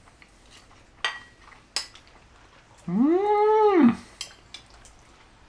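Cutlery clicking on a plate a couple of times, then a single drawn-out vocal sound about a second long that rises in pitch, holds and falls away.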